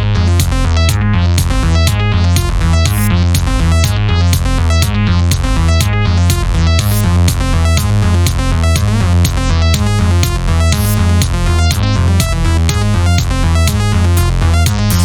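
Electronic background music with a synthesizer and a steady drum-machine beat.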